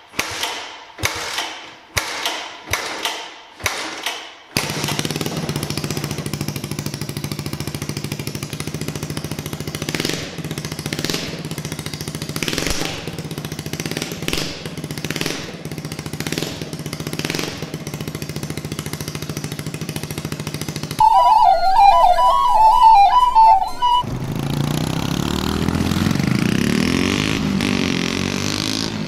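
A 150cc single-cylinder motorcycle engine on a go-kart, with an exhaust and no muffler, is kicked over several times in quick strokes. It catches about four and a half seconds in and runs with a steady, pulsing exhaust note. Near the end the kart is heard driving by, its engine pitch rising and falling.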